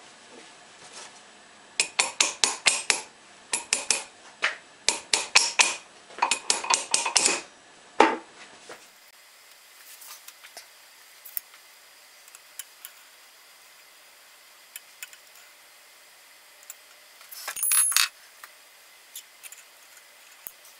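Steel bearing parts clinking against each other and the spindle as they are handled and set on a lathe spindle during reassembly: a dense run of sharp metallic clicks for several seconds, then a few faint ticks and one short clatter near the end.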